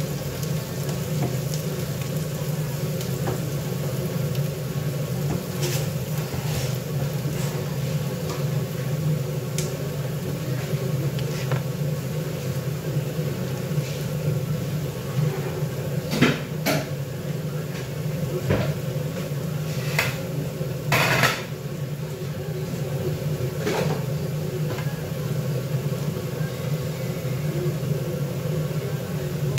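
Kitchen cooking sounds: a steady low hum with faint sizzling, and a few sharp clinks and knocks of utensils, pots and dishes past the middle, one longer clatter among them.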